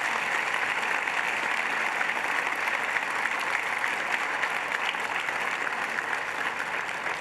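Sustained applause from a large audience, many hands clapping steadily.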